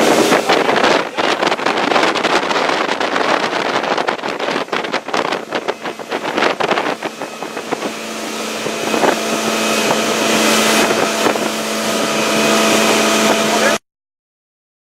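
Motorboat engine running under way, with wind buffeting the microphone and water rushing for the first half; the engine hum then holds steady and rises slightly before cutting off abruptly near the end.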